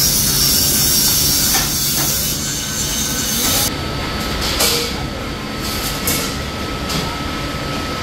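Pearson hydraulic press brake running in a sheet-metal shop, with a steady hum and a high whine, and a few clanks as perforated steel sheet is shifted on the press bed. A loud hiss cuts off about halfway through.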